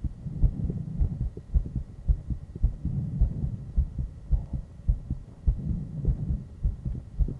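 A human heartbeat heard close up through a microphone: a steady run of short, low, dull thumps in lub-dub pairs.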